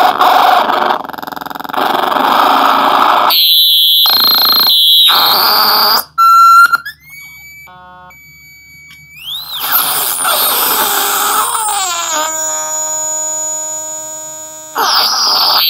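Homemade noise synthesizer built into a tin, played by turning its knobs and flipping its toggle switches: harsh buzzing noise and shrill electronic tones that change abruptly. About six seconds in it drops to quieter thin tones with a rising sweep, then loud noise returns with falling glides and a steady shrill chord before flaring up again near the end.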